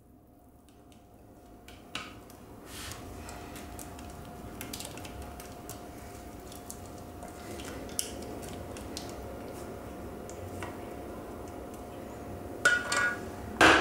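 Thick lemon cream sliding out of a saucepan into a pastry shell, with soft scrapes and light clicks of a spatula against the pan, over a faint steady hum. A louder scrape comes near the end.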